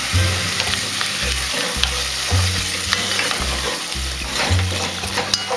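Sliced potatoes and onion sizzling in hot oil with a little water in an enamel pot, stirred with a wooden spoon that scrapes and taps on the pot. A low note repeats about once a second underneath, like the bass of background music.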